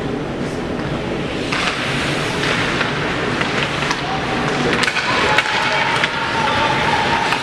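Ice hockey play heard from the stands: skates scraping and carving on the ice in bursts, a few sharp clacks of sticks and puck, over a steady murmur of the arena. A steady tone joins in about halfway through.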